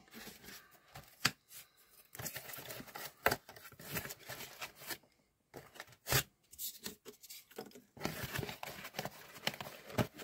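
Paper packing material being handled and torn: stretches of rustling and crinkling broken by a few sharp clicks.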